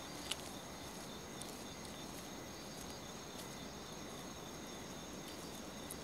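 Faint night ambience of crickets chirring steadily in the woods, with a soft click about a third of a second in.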